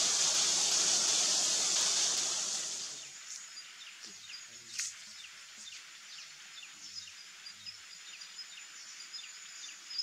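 Outdoor natural ambience. A loud steady hiss for the first two to three seconds gives way to a quieter background with a thin, steady, high insect whine and many short, high, falling chirps. There is one sharp click about five seconds in.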